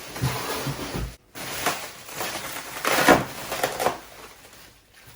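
Packaging being handled and pulled apart: uneven bursts of rustling and crinkling. The sound cuts out briefly about a second in, and the loudest bursts come around three seconds in.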